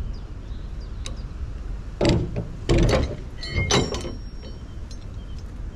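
A sailing barge's mast-lowering rigging (line, tackle and metal fittings) knocking and clanking as the line is hauled on, with a run of loud knocks between about two and four seconds in and a short squeal near four seconds.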